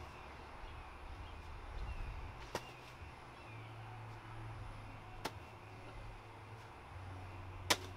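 Bean bags landing on a hard toss board: three short sharp knocks a little over two seconds apart, the last the loudest, over a low steady hum.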